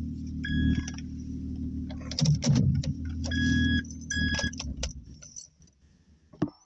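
Car engine idling, then dying away about five seconds in as it is switched off, with keys jangling and three short high beeps.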